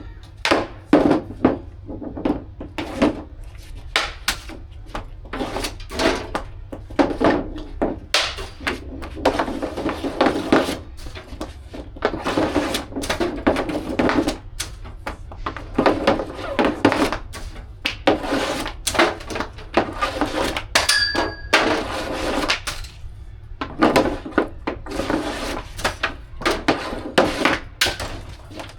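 Hockey stick and puck knocking and clattering again and again during deflection practice, with irregular gaps between the hits. A short electronic beep sounds about two-thirds of the way through.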